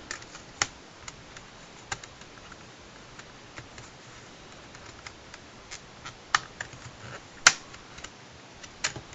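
Scattered light clicks and taps from handling a fold-out Blu-ray disc case, with one sharper click about seven and a half seconds in.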